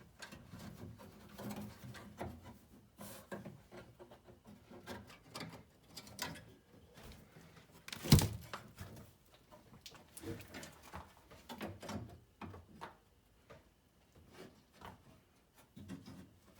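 Hands working a metal linkage bar onto the door-lock mechanism inside a 1974 Corvette door shell: scattered small clicks, taps and rustles, with one sharp knock about eight seconds in.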